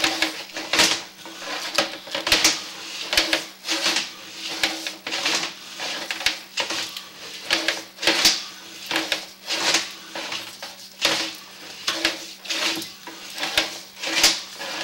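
Sewer inspection camera's push cable and reel clicking and knocking as the cable is moved through the drain, in irregular sharp clicks about once or twice a second over a steady low electrical hum.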